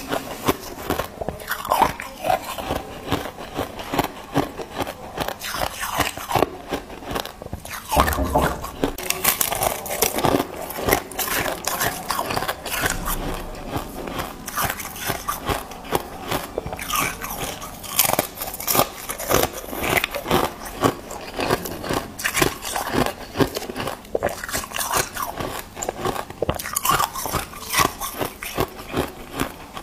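Close-miked crunching of white, snow-like ice being bitten and chewed. It is a dense, unbroken run of crisp crackling crunches.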